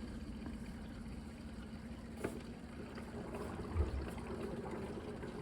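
Countertop reverse osmosis water filter's pump running with a steady low hum as it starts a flush cycle, with a brief click about two seconds in and a soft thump near four seconds.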